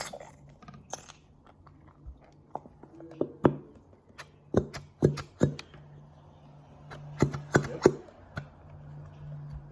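Irregular sticky clicks and taps of a utensil working glue in a bowl, over a steady low hum.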